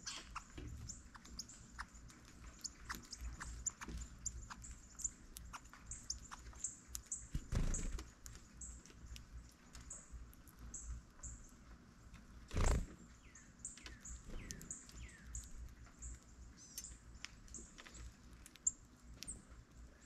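Small songbirds at a seed feeder giving short, sharp, very high chip notes over and over, with a few lower downward-sliding calls in the second half. Two dull thumps stand out, one about a third of the way in and one past the middle.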